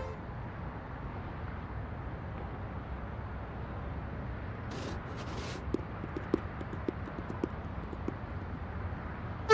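Steady low rumble of background noise; about five seconds in come two short hissing noises, then a run of light, sharp knocks, roughly nine of them over two and a half seconds.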